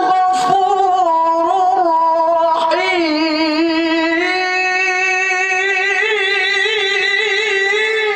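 A male qari reciting the Quran in melodic tilawah style, drawing "al-Ghafur" out into one long, high-pitched phrase of held notes with wavering ornaments.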